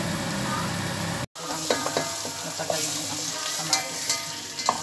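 Chopped onion and tomato sizzling in oil in a pot, with a wooden spatula stirring and knocking against the pot. The sound drops out for an instant about a second in.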